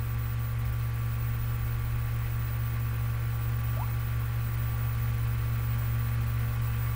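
Steady low electrical hum with even background hiss.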